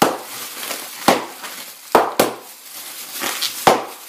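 Plastic bubble packing being popped by hand: five or so sharp pops at irregular intervals, with plastic crinkling between them.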